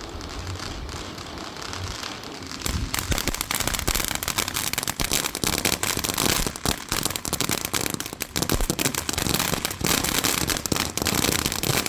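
Consumer firework going off: a lower hiss at first, then from about three seconds in a dense, rapid crackle of many small pops that keeps going.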